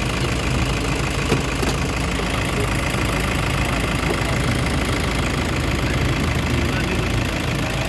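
Toyota HiAce engine idling steadily.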